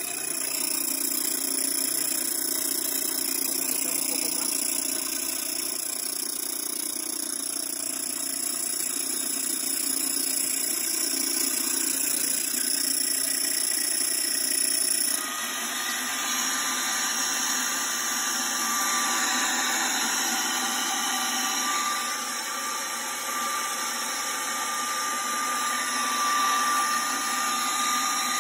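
Grain mill with metal grinding discs running steadily as it mills coarse cracked maize into fine meal. About halfway through the sound shifts suddenly and a thin, steady whine joins it.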